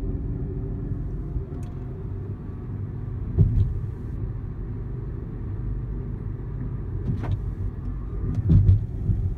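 Car road noise heard from inside the cabin while driving: a steady low rumble of tyres and engine. Two louder thumps break through, one about three and a half seconds in and one near the end.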